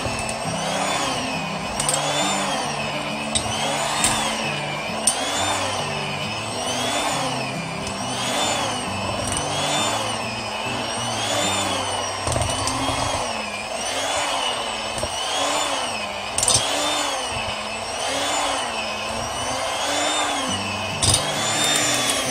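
Electric hand mixer with dough hooks kneading a stiff, egg-free yeast dough in a stainless steel bowl. The motor whine rises and falls about once a second as the hooks catch the dough, and a few sharp clicks come from the hooks knocking against the bowl.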